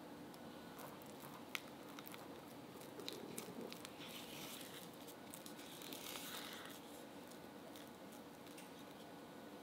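Silicone spatula mashing and scraping soft butter cookie dough around a glass bowl, working in strawberry jam: a faint squishing and scraping, busiest from about three to seven seconds in, with a few light clicks.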